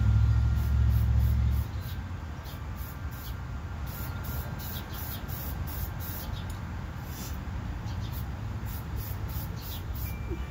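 Aerosol spray paint can hissing in many short bursts, one after another. A loud low rumble runs under it for the first second and a half.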